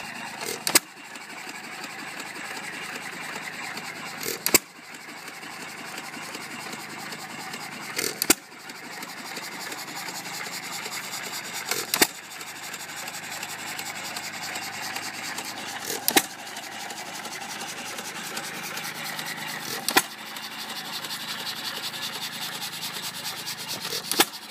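John Deere 1.5 hp single-cylinder hit-and-miss engine running unloaded: a sharp firing bang about every four seconds, seven in all, with the engine coasting on its flywheels and ticking rapidly between firings.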